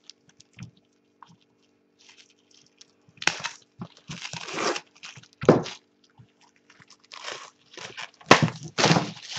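Plastic shrink-wrap being peeled and pulled off a cardboard box, crinkling and crackling in irregular bursts.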